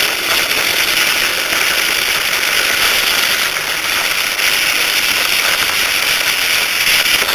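Static from a Tonomac Siete Mares AM/shortwave radio receiver: a steady, loud hiss of noise with no station audible, as the dial sits between stations.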